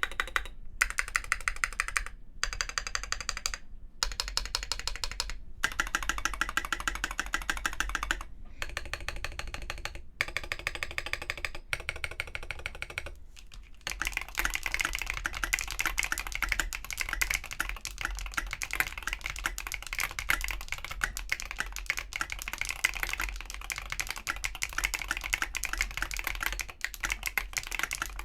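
Typing on a custom AARU TKL mechanical keyboard with KNC Green Jacket tactile switches, a 4mm brass plate and SA-profile ABS keycaps. It comes as short runs of rapid keystrokes with brief pauses for about the first half, then continuous fast typing.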